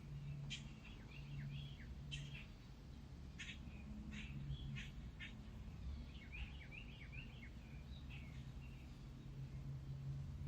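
Small birds chirping and calling in short, quick notes, with a few sharper high calls, over a low steady hum.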